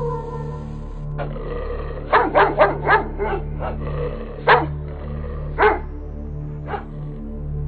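A dog barking over a steady low musical drone: a quick run of four or five barks about two seconds in, then single barks about a second apart.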